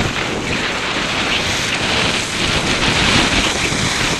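Wind buffeting a helmet-mounted camera's microphone at speed on a snowboard run, a loud, steady rush with gusty low rumble, with the hiss of the board sliding over snow.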